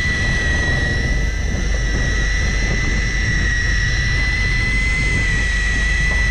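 Electric fishing reel's motor whining at a steady high pitch as it winds in line under load from a hooked fish, over a low rumble.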